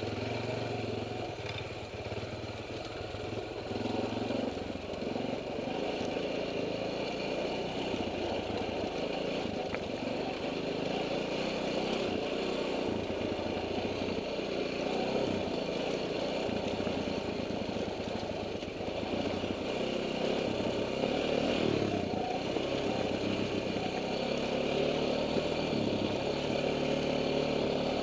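KTM enduro dirt bike engine running while riding a rocky trail, heard from the rider's helmet camera, the revs rising and falling a little.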